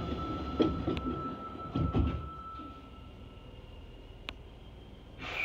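Sliding doors of a Fukuoka City Subway 1000-series car closing after the door chime, with a knock and then a heavier thump about two seconds in. A sharp click follows, then a short burst of noise near the end as the train is about to pull away.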